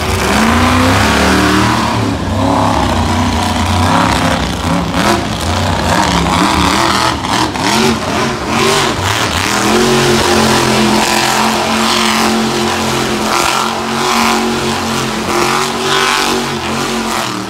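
Monster truck engine revving hard, the pitch swinging up and down for several seconds, then held at high revs in the second half.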